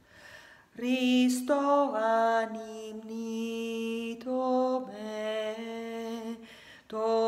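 A woman singing alone without accompaniment: a slow, chant-like melody in long held notes. There is a short pause for breath at the start, and another just before the end, where the next phrase begins.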